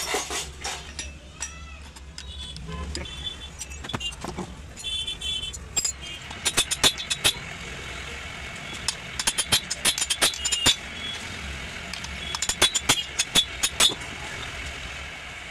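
Quick metallic clicks in three bursts of rapid strokes, as hand tools work on a chainsaw being taken apart for a piston and bearing change, over a steady traffic hum.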